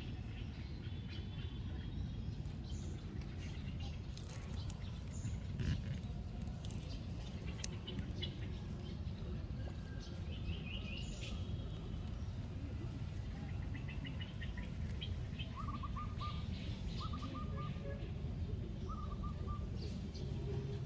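Birds chirping and calling over a steady low background rumble, with a few short trills in the latter part.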